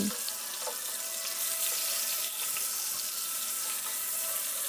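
Rohu fish steaks sizzling as they shallow-fry in hot oil in a pan, a steady hiss.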